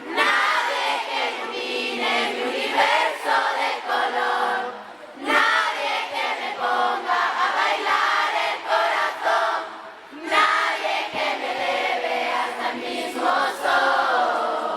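A crowd of fans singing together in unison, in three phrases broken by short pauses about 5 and 10 seconds in.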